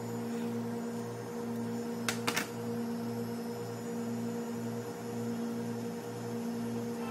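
Steady electrical hum from café equipment, its low tone pulsing about one and a half times a second, with two short clicks about two seconds in.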